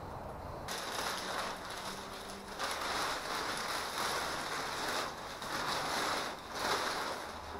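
Black plastic bags rustling and crinkling in repeated surges as they are handled.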